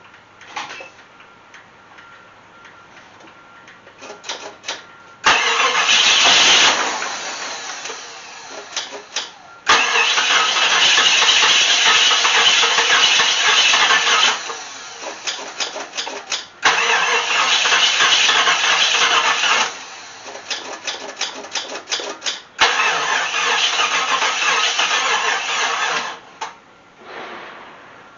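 Starter cranking a Jeep Grand Wagoneer's AMC 360 V8 in four long bursts, the engine turning over without catching. It will not fire because no fuel is reaching the carburettor.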